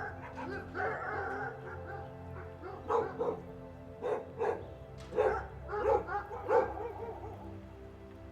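A dog barking in a string of short barks, most of them in the second half, over background music with steady held notes.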